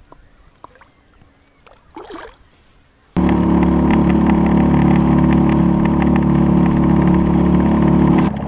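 Small outboard motor pushing a canoe, running at a steady, even pitch. It starts suddenly about three seconds in and runs loud until just before the end, after faint water and handling sounds.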